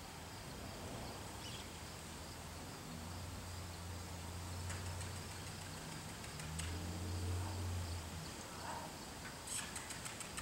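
Crickets chirping steadily in a high, thin trill. A low hum swells twice in the middle, and a quick run of sharp clicks comes near the end.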